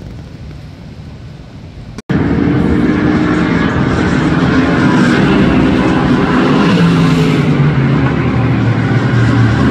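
Loud, steady engine drone with a slight drop in pitch about seven seconds in. It begins abruptly at an edit about two seconds in, after quieter open-air noise.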